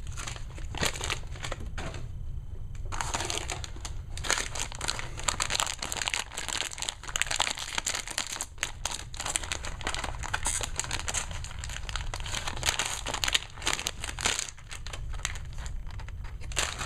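Foil booster-pack wrapper crinkling and rustling as hands open it and work the figures out. A few short rustles come first, then dense crinkling from about three seconds in almost to the end.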